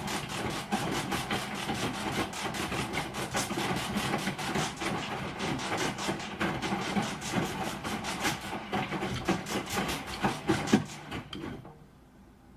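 Broken washing machine running with a fast, uneven clattering and knocking over a low rumble, a louder knock near the end before it falls quiet about a second before the end.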